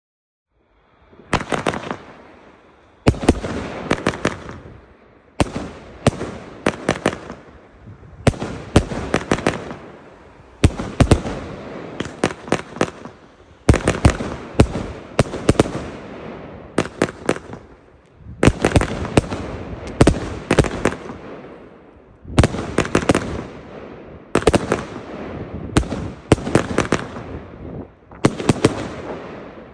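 Lesli Prezident Piro, a 25 mm, 144-shot fireworks cake, firing its shells upward in rapid salvos. Tight clusters of sharp bangs come about every two seconds, each followed by a fading crackle, starting about a second in.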